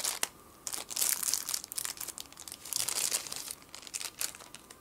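Clear plastic sleeve crinkling in irregular rustling bursts as hands slide a small measurement microphone out of it.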